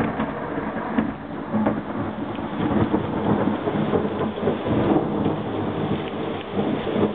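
Thunder from a cloud-to-ground lightning strike, a long loud rumble with a few sharper peaks, over heavy rain.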